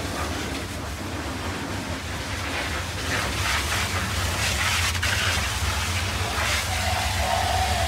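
High-pressure washer jet hissing and spattering against a dump truck's wheels and steel chassis, over a steady low hum. The spray grows louder about three seconds in as the jet plays over the frame.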